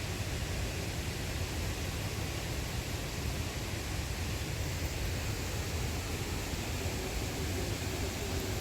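Steady rushing of the Putna river's waterfall and rapids, an even noise with a heavy low rumble and no breaks.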